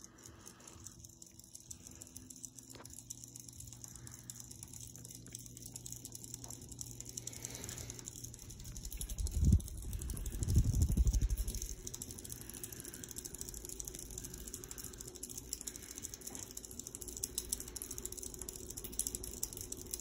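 Harbor Breeze Classic ceiling fan running unmounted on a workbench, its motor giving a steady low hum with light rattling clicks, the level rising over the first several seconds. About ten seconds in, loud low buffeting on the microphone lasts a couple of seconds.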